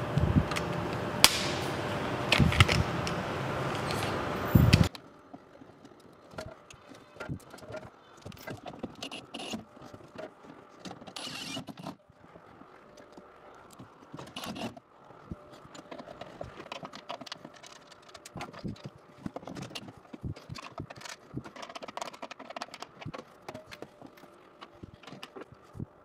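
Hand work mounting plastic tubing and small fittings: scattered clicks, taps and rustles. A louder steady noise with a few sharp clicks runs for the first five seconds and cuts off suddenly.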